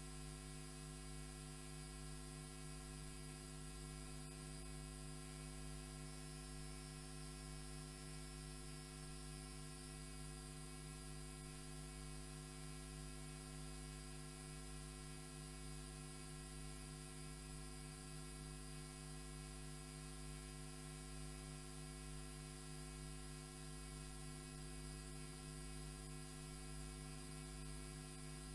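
Faint, steady electrical mains hum with a buzzy string of evenly spaced overtones, unchanging throughout.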